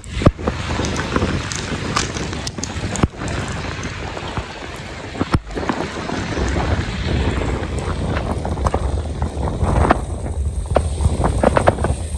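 Heavy downpour heard from a moving bicycle: a dense, steady rushing hiss of rain, wind buffeting the microphone and tyres through water on the road, broken by frequent sharp ticks and knocks.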